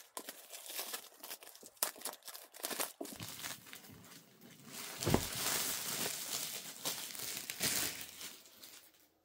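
Packaging being handled and unwrapped: crinkling and rustling with scattered clicks. The loudest moment is a thud about five seconds in, followed by a denser rustle lasting a few seconds.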